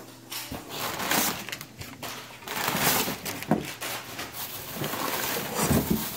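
Plastic bags and kraft packing paper rustling and crinkling as hands rummage through a cardboard shipping box, in uneven handfuls.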